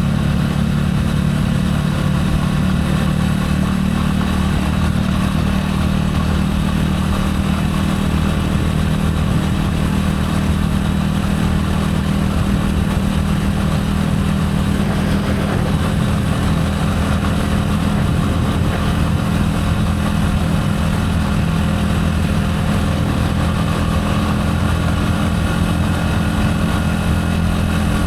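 Gilera AC4 motorcycle's 250 cc single-cylinder four-stroke engine running steadily at an even pitch, heard from on the bike.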